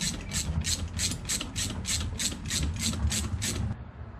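Socket ratchet clicking in quick, even back-and-forth strokes, about five a second, as a nut is tightened on a motorcycle footrest hanger bolt. The clicking stops shortly before the end.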